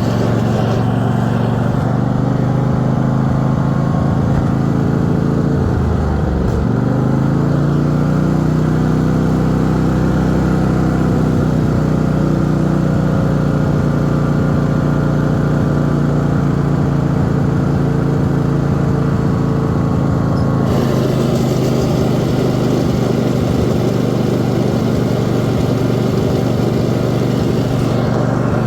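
Small engine running steadily under load, dipping briefly in pitch about six seconds in and recovering. A steady hiss joins it about two-thirds of the way through.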